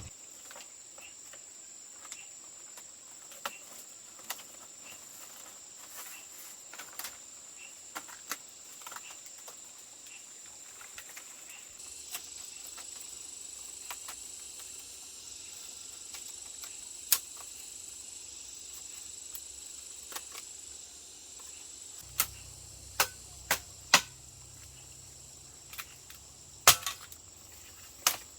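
A steady high-pitched insect drone, with scattered sharp knocks and clicks at irregular intervals; the loudest knocks come in a cluster in the last third.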